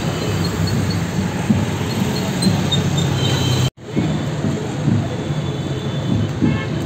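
Steady low rumbling background noise with faint high chirps. It cuts out for an instant a little past halfway, then carries on.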